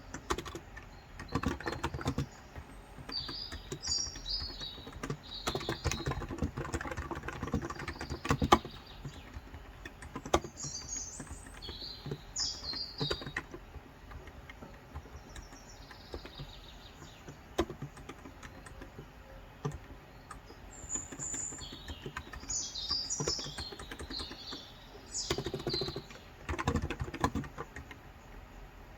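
Typing on a Cox Endeavour electro-capacitive (Topre-style) keyboard with 35 g key switches: bursts of rapid keystrokes separated by short pauses. Birds chirp in quick, high phrases over the typing, several times.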